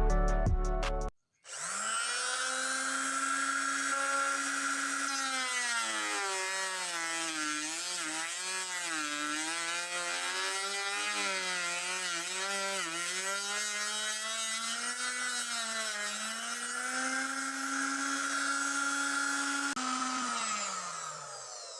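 Homemade circular saw driven by a blender motor: it starts up with a steady high whine, then the pitch sags and wavers for about ten seconds as the blade cuts under load, recovers when the load comes off, and winds down with a falling pitch near the end.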